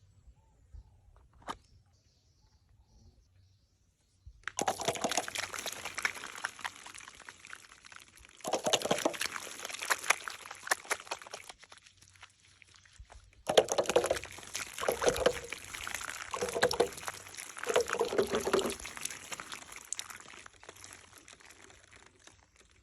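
Water being poured and splashing, in two long spells after a few seconds of near silence, fading out near the end.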